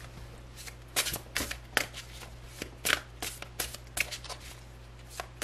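A deck of tarot cards shuffled by hand: after about a second, an irregular run of sharp card snaps, two or three a second.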